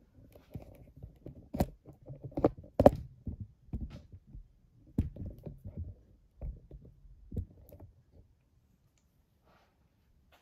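Handling noise: irregular light clicks and knocks over a low rumble, falling quiet about eight seconds in.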